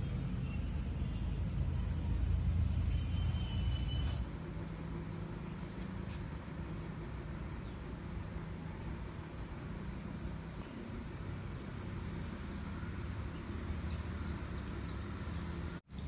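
Outdoor ambience: a steady low rumble that drops in level about four seconds in, with a quick run of short, high, falling bird chirps near the end.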